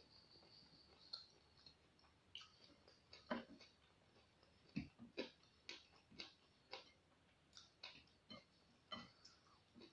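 Faint, crisp crunching of someone chewing raw vegetables. There are a few scattered crunches at first, then a steady run of about two a second from about halfway.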